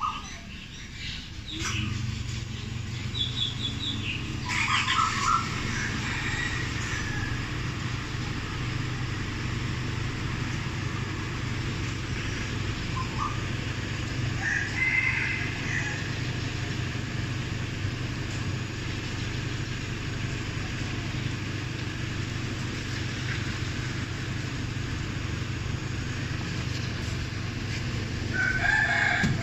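A rooster crowing three times, about 5 s in, around 15 s and near the end, over a steady low hum of an idling car engine.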